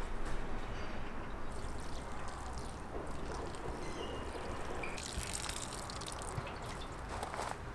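Water pouring from a watering can onto a small shrub and the soil around it, a steady trickle and splash.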